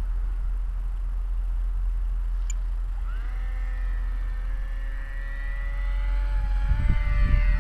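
Electric motor and pusher propeller of a Multiplex EasyStar RC plane whining overhead. The whine sweeps up in pitch about three seconds in as the throttle opens, then holds, climbing slowly. Wind rumbles on the microphone near the end.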